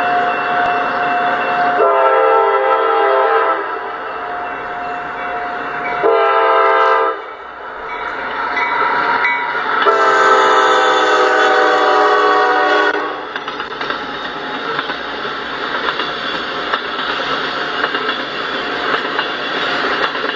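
Freight train horn sounding for a road grade crossing: a long blast about two seconds in, a short one around six seconds, and another long one from about ten to thirteen seconds. After that comes the steady noise of the train's cars rolling past.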